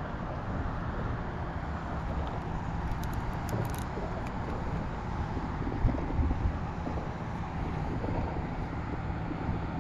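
Steady wind rumble on the microphone outdoors, with a few faint clicks about three to four seconds in.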